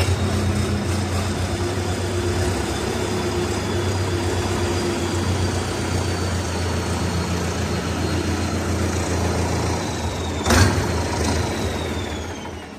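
Tractor diesel engine running steadily at low speed, with a sharp knock about ten and a half seconds in; the engine sound falls away near the end.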